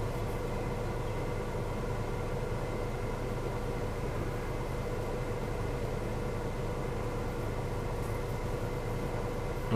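Steady background noise inside the cabin of a 2018 Chevrolet Equinox: an even low rumble with a faint steady hum, and no music playing.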